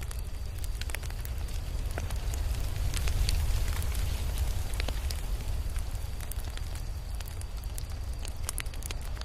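Crackling fire: scattered sharp pops and crackles over a steady low rumble, swelling a little louder about three seconds in.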